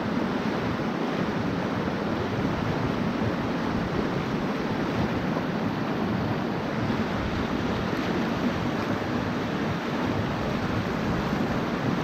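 Mountain stream water rushing, a steady even wash of noise.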